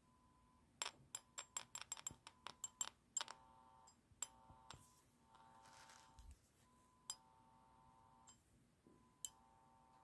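Faint electronic tone from a small Archer mini amplifier speaker: the beep of a TENMA LCR meter two feet away, picked up by the amplifier, coming and going. About a second in comes a quick run of a dozen or so sharp clicks, then a few single clicks later.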